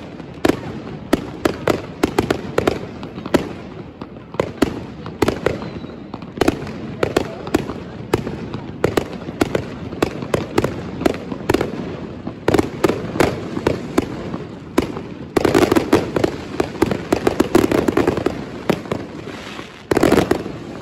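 Many fireworks and firecrackers going off all around: a dense, irregular run of bangs and crackles that grows thicker and louder about three quarters of the way through.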